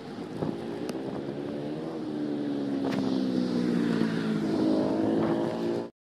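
Vehicle engine running while driving, its pitch sinking and then climbing again near the end, with a couple of light clicks; the sound cuts off suddenly at the end.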